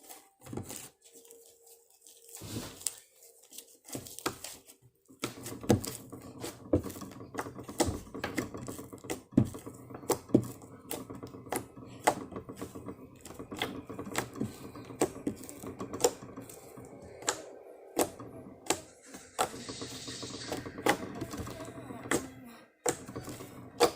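Slime being squished and poked by hand, giving a fast, irregular run of sharp clicks and pops from about five seconds in.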